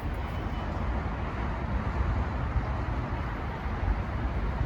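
Steady road traffic noise: cars running along a busy highway.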